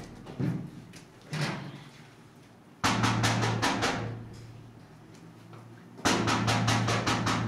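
Dramatic background score: two heavy percussive hits about three seconds apart, each followed by a fast pulsing that fades over about a second, over a low held note, with two lighter hits near the start.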